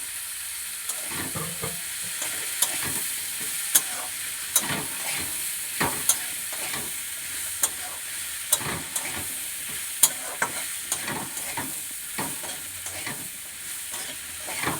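Vegetables sizzling as they fry in fish oil in a pan, with a spatula scraping and knocking against the pan every second or so as they are stirred.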